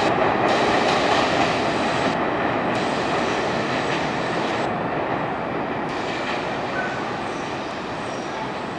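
R42 subway train departing an elevated station, its running noise on the rails slowly fading as it pulls away.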